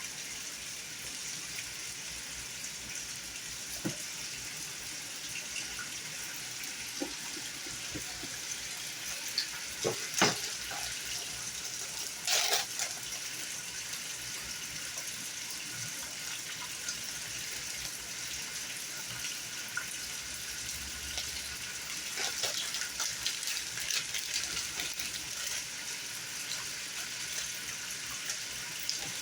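Steady sizzling hiss of food frying in hot oil, with a few light knocks of kitchen handling.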